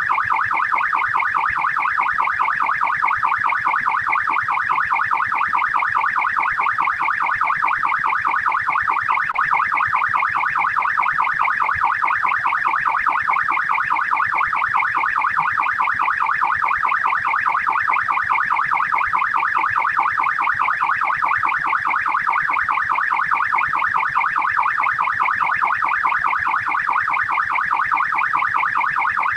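Australian police car siren on fast yelp, a rapid up-and-down wail repeating several times a second without a break.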